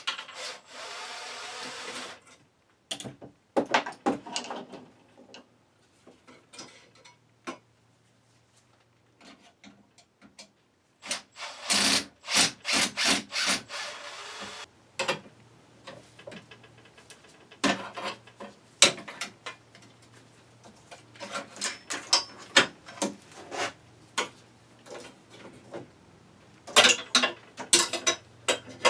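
Hand tools and metal parts of a power seat frame being worked on: scattered clicks, knocks and scraping, with a quick run of clicks around the middle and another cluster near the end.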